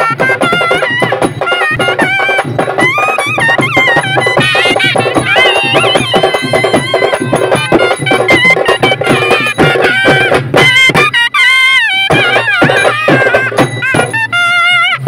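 Traditional procession music: a reed wind instrument plays a wavering, ornamented melody over fast, dense drumming. The drums drop out briefly about two-thirds of the way through, leaving the melody alone.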